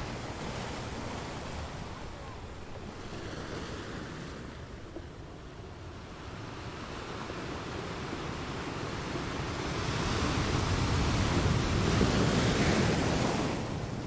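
Rough sea waves surging and breaking, with wind. The surf swells louder through the second half, peaks, and falls away shortly before the end.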